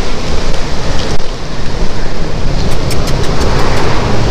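Wind buffeting the microphone outdoors: a loud, steady low rumble with no clear pitch. A few light clicks about three seconds in.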